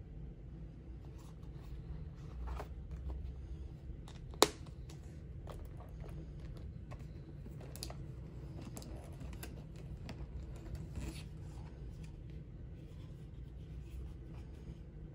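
Small handling sounds of a Louis Vuitton Damier Azur canvas wallet being folded and pressed shut on a table, with light rustles and taps and one sharp click a little over four seconds in as the wallet's press-stud snaps closed. A low steady room hum lies underneath.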